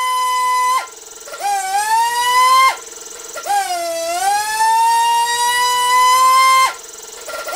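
Brushless motor and propeller on a thrust stand, whining loudly near full throttle on a six-cell battery, driven by a custom ESC. Three times the pitch drops suddenly into a rough buzz, then climbs back up.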